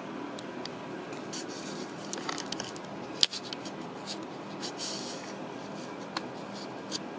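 Scratching and rustling against a fleece sweatshirt, with scattered sharp clicks, the loudest about three seconds in, over a steady background hum.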